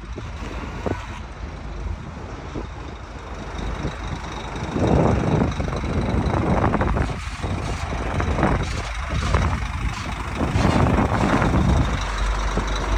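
Heavy diesel vehicle engine running, with clanks and air noise, getting louder about five seconds in, as the machinery is worked during unloading.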